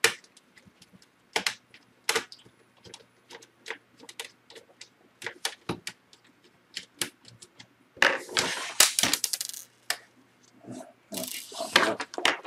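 Scattered sharp clicks and taps on a laptop's plastic case as it is handled and a missed screw is taken out of the bottom. Then come two stretches of scraping and rattling as the palm rest is worked loose and lifted off.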